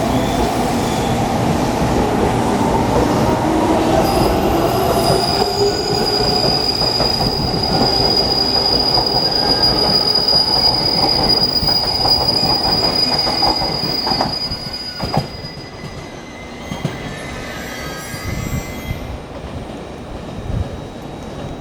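JR Kyushu 813 series electric train (three sets coupled) pulling out and running past, with wheel-on-rail noise and a high, steady squeal for about ten seconds; the sound drops away about two-thirds of the way through as the train moves off.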